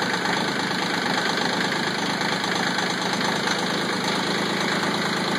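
Kioti CK20 compact tractor's diesel engine idling steadily just after a restart with a full glow-plug sequence, running smoothly.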